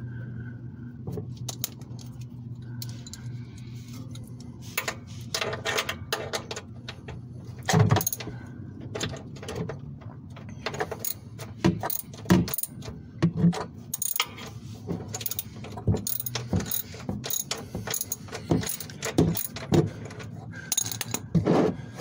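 Irregular metallic clicks, taps and scrapes of hand work at the underside of a car's engine during an oil change, as a loosened part is turned and handled by hand. A low steady hum is heard for the first few seconds, and the clicks and knocks begin about five seconds in.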